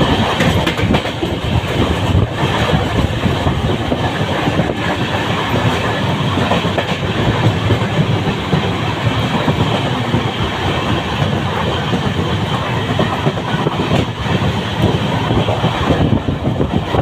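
A superfast express train running at speed, heard from on board: a steady rumble and clatter of the coach's wheels on the rails.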